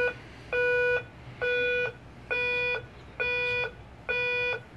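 Federal Signal Select Tone 300GC electronic siren sounding its 'beep' tone through its horn speaker on the low setting: a steady, evenly timed beep just over once a second, each beep about half a second long. It sounds like an alarm clock or a backup beep.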